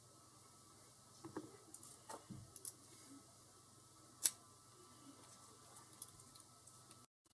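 Faint, scattered clicks and light taps of small brass padlock core parts being handled in the fingers, with one sharper click about four seconds in.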